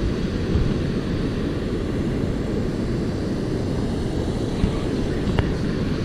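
Steady low rumble of river water pouring over a low-head weir.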